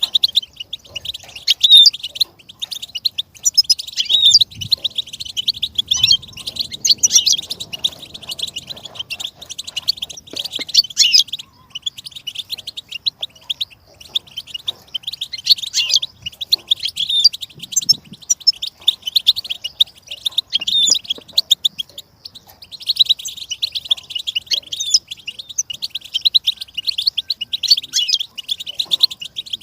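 Goldfinch song: rapid, liquid twittering and trilling, going on almost without a break, with brief pauses about twelve and twenty-two seconds in.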